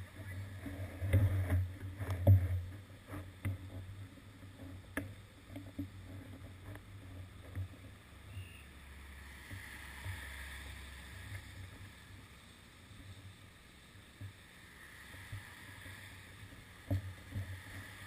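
Muffled low rumble of traffic waiting on a wet road, heard through an action camera's waterproof housing, with scattered sharp ticks and knocks, most of them in the first few seconds. Around nine to twelve seconds in, a steadier low hum with a faint hiss rises and fades.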